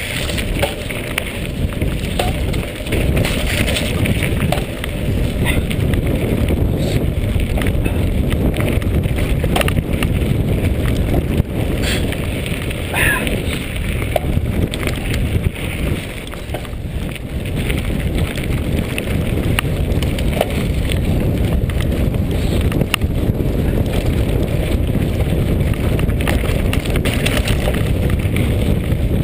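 Wind buffeting the microphone of a camera riding on a moving mountain bike, over the tyres rolling on a dirt and gravel track and the bike rattling, with scattered sharp clicks and knocks.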